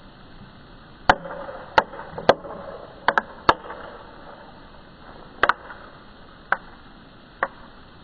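Plastic bottle on a PVC-pipe baking soda and vinegar rocket launcher giving a string of sharp clicks and pops as carbon dioxide pressure builds inside it before launch. There are about ten clicks, irregularly spaced, some in quick pairs.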